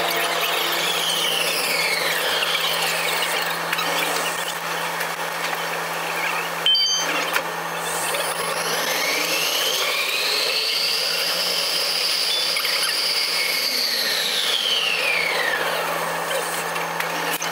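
Vancouver SkyTrain car's linear-induction-motor drive whining, heard from inside the front of the train over a steady low hum and running noise. The high whine falls as the train slows, then after a short break rises as it pulls away, holds steady at speed, and falls again as it brakes.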